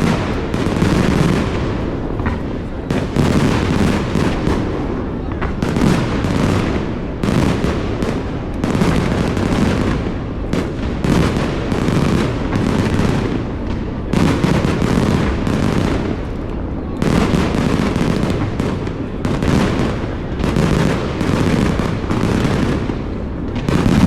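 Aerial fireworks going off in rapid succession, a dense run of overlapping bangs and booms with no real pause between them.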